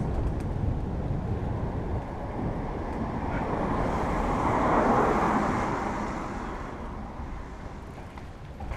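A car passing on the road, its tyre and engine noise swelling to a peak about five seconds in and then fading, over a steady low rumble of wind on the microphone while riding.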